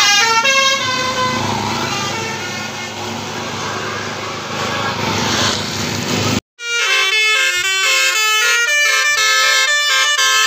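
Bus 'telolet' musical air horn playing a tune of short stepped notes, fading into the noise of a passing bus. After a sudden break about six seconds in, a horn plays another fast run of changing notes.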